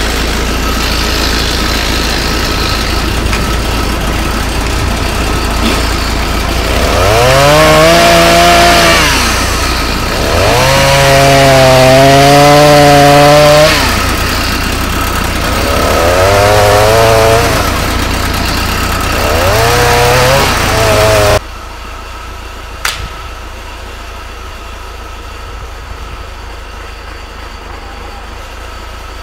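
A loud engine revving hard in four rising surges, each a few seconds long. It then drops suddenly to a quieter steady engine running, with one sharp click.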